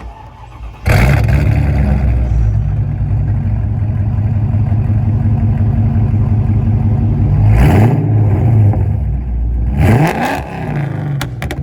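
Straight-piped supercharged 5.4-litre V8 of a modified Mercedes E55 AMG, with long-tube headers and the catalytic converters and mufflers deleted. It starts up about a second in and idles loudly, then is revved twice in quick blips near the end.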